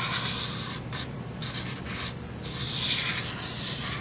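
Marker pen drawn across cardboard in several strokes: a soft scratchy hiss, with short breaks about a second in and just after two seconds.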